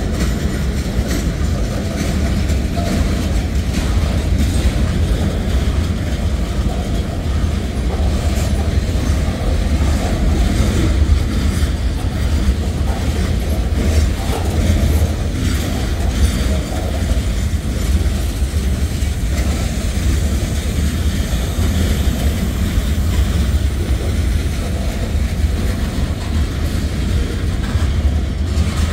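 Norfolk Southern manifest freight train's cars rolling steadily past: a continuous low rumble with repeated clicks of steel wheels over the rail joints.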